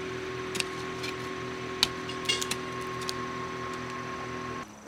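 A steady mechanical hum, like a small motor or fan, with a few light clicks over it; it cuts off suddenly near the end.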